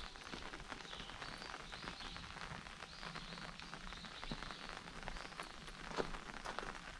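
Outdoor ambience on a wooded path: an even hiss with scattered soft taps and clicks, and a bird chirping in short high notes roughly once a second.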